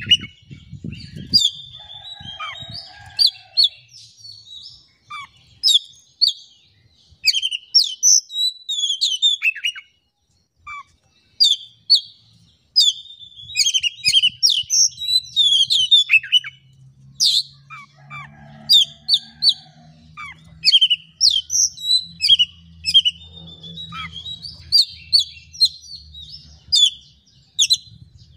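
Oriental magpie-robin singing a fast, varied song of sharp, high chirps and whistled phrases, full of notes mimicked from other birds. The song breaks off briefly about ten seconds in. A faint low hum runs under the second half.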